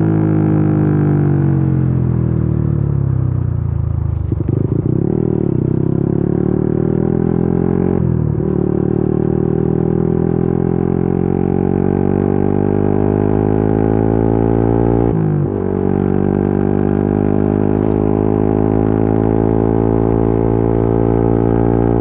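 Yamaha Y15ZR's 150 cc single-cylinder four-stroke engine running under way, heard from the rider's seat. The engine note sinks over the first few seconds, then climbs steadily, breaks sharply about fifteen seconds in at a gear change and climbs again.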